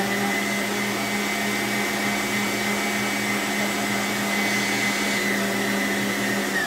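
Arno Planetária stand mixer running steadily, its wire whisk beating butter-cookie cream in the bowl, with an even motor whine. Near the end it is switched off and the motor winds down in falling pitch.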